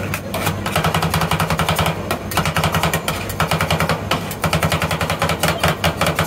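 Two metal spatulas chopping rolled-ice-cream mix on a frozen steel cold plate: rapid clacking of blade on steel, about ten strikes a second, in several runs with short pauses. A steady low hum runs underneath.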